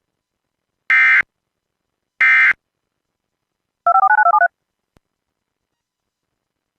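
Emergency Alert System end-of-message data bursts: two short buzzy digital chirps about a second apart, the last of the three EOM bursts that close an alert. About four seconds in comes a quick half-second run of touch-tone (DTMF) beeps.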